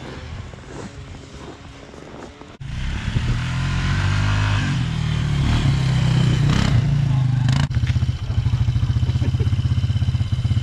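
ATV engine running: fairly quiet at first, then much louder with the revs climbing after about two and a half seconds. After a sudden break about three quarters of the way through, it runs with a steady, evenly pulsing beat.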